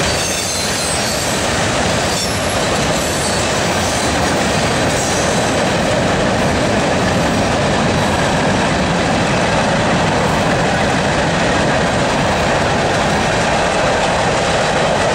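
Freight cars of a CSX mixed manifest train (tank cars, boxcars and covered hoppers) rolling steadily past, their steel wheels running on the rail, with a faint high wheel squeal in the first few seconds.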